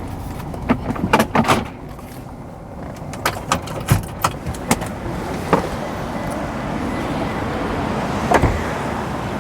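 Steady vehicle and background noise, with a string of irregular sharp clacks and knocks that come thickest about a second in and again around four seconds in.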